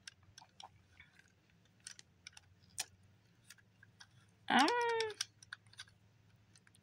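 Light plastic clicks and rattles from handling a tripod's phone-holder clamp. About four and a half seconds in comes a short, loud squeak that rises sharply in pitch, then holds for under a second.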